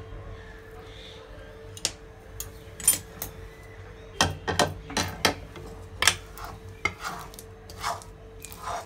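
Metal spatula and spoon scraping and knocking against a kadhai, scraping out sticky peanut-jaggery mixture. The sound comes as a run of short scrapes and clanks, busiest about four to five seconds in.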